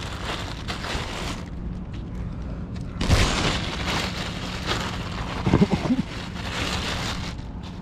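Wind buffeting the microphone in gusts, with a loud blast about three seconds in and a few low thumps a little before six seconds.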